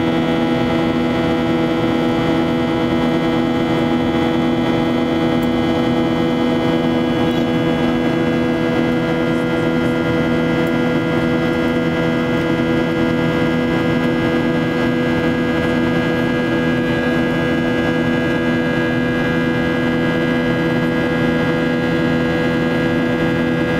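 Boeing 737-800 heard from inside the passenger cabin: the steady drone of its CFM56-7B turbofan engines and the rush of air, with several steady hum tones that do not change.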